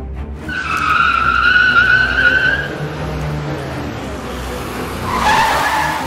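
Sound effect of vehicle tyres squealing in a skid: one long held squeal lasting about two seconds, then a second, shorter hissing skid near the end, over background music.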